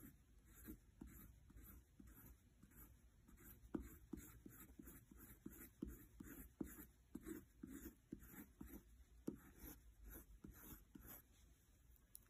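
Wax crayon rubbing on sketchbook paper in quick back-and-forth shading strokes, about three a second, faint and scratchy, stopping near the end.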